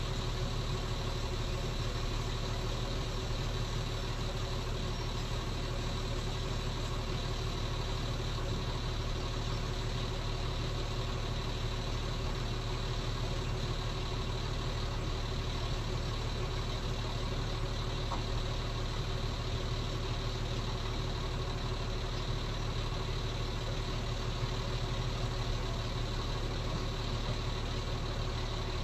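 An engine idling steadily: a low, even hum with a few faint steady tones above it, unchanging.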